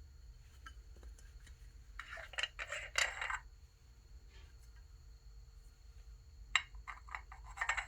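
Two short runs of sharp metal clicks and clinks from an Allen wrench and socket working the wheel's 6mm bolts and lock nuts, the first a few seconds in and the second near the end.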